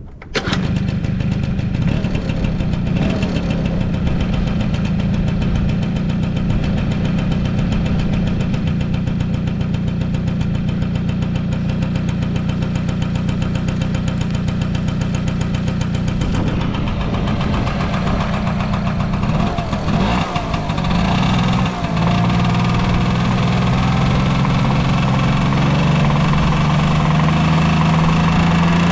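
Early Honda Tact (AB07) scooter's small two-stroke engine catching right at the start and then idling steadily; about twenty seconds in it is blipped up and down and then holds a slightly faster, even idle. It runs without any abnormal noise, as the seller states.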